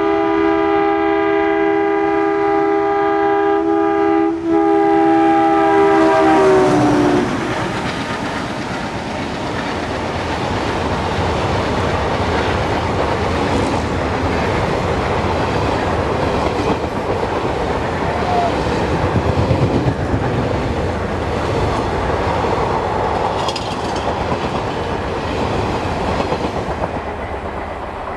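Indian Railways ALCO diesel locomotive's two-tone horn blowing one long blast of about seven seconds, sagging in pitch as it cuts off. Then the locomotive and its passenger coaches run past at speed, the wheels rolling loudly on the rails.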